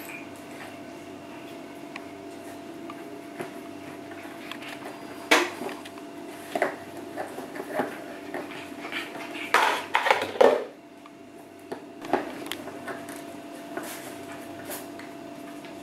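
Puppies playing and scrabbling around a cardboard box on a tiled floor: irregular knocks, scrapes and clatter, loudest about five seconds in and in a cluster around ten seconds.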